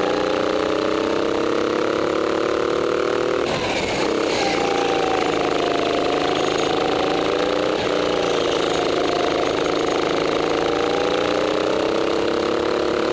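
Go-kart engine running under throttle, its note rising and falling with speed. It drops off briefly about three and a half seconds in, then climbs steadily again.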